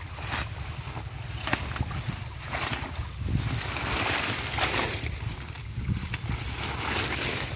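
Hands sloshing and splashing in shallow muddy water and tearing out clumps of water hyacinth, with wet leaves rustling and scattered sharp ticks. The rustling is thickest around the middle. A steady low rumble runs underneath.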